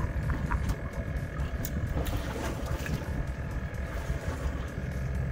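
Boat engine running steadily while the boat is underway: a steady hum over a low rumble.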